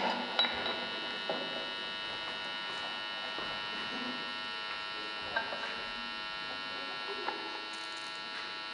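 Steady electrical hum and buzz from an electric guitar rig left idle between playing, with a few faint clicks of handling noise.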